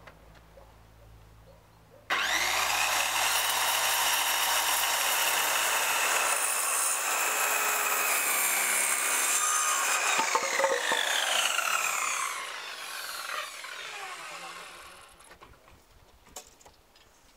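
Handheld circular saw starting up about two seconds in and cutting through a 5x10 cm timber board for about ten seconds. Its motor whine then falls away as the blade spins down.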